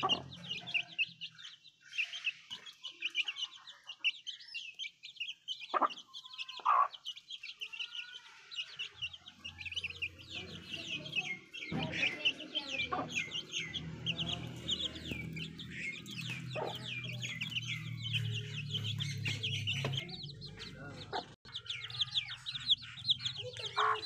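Aseel chicks peeping almost without pause as they feed, many short high chirps that slide downward. A few lower clucks from an adult hen come about six to seven seconds in.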